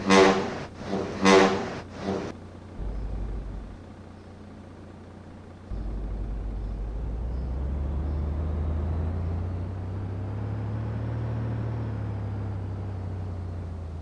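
Newly fitted vehicle horn tested with three short honks, two longer and one brief. A low rumble follows, and about six seconds in a vehicle engine starts and runs steadily.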